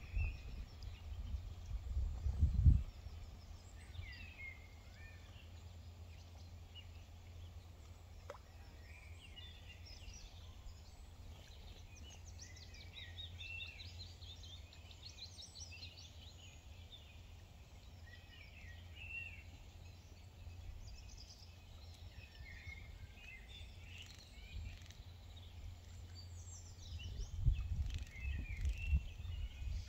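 Birds chirping and trilling in short scattered phrases, over a low rumble of wind on the microphone that gusts louder over the first few seconds and again near the end.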